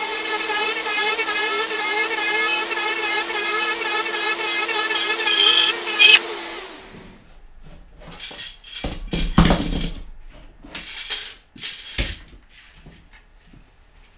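A DeWalt compact router and its dust-extraction vacuum run steadily while the router cuts through plywood, then shut off and wind down about seven seconds in. This is followed by a string of knocks and clicks as the template jig's clamps are released and its aluminium rails are handled.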